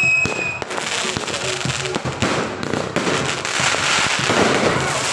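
Aerial fireworks going off: a rapid, continuous stream of bangs and crackles over a constant fizzing hiss. A high whistle cuts off about half a second in.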